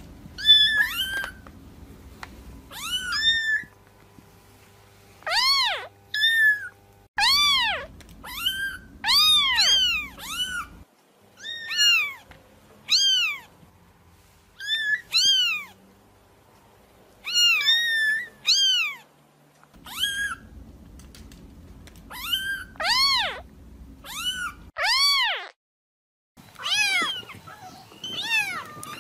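Kitten meowing over and over: a long series of short, high mews, each rising and then falling in pitch, coming in quick runs with brief pauses between them. A faint low hum sits under some of the runs.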